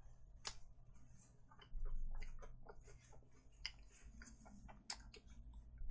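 Close-miked eating of a crispy, powder-coated fried chicken drumstick: irregular small crunches and chewing clicks.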